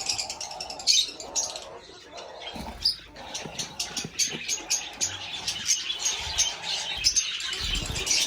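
Birds in a pigeon loft chirping rapidly and continuously, with the wing flaps of young pigeons that have just begun to fly and a few soft low thumps.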